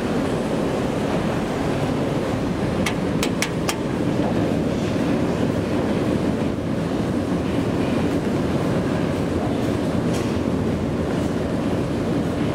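1994 Thyssen inclined elevator car travelling along its sloped track, a loud steady rumble, with a quick run of four sharp clicks about three seconds in.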